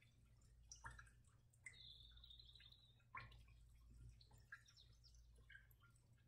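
Near silence: room tone with a low steady hum, faint scattered ticks and a faint high tone lasting about a second, about two seconds in.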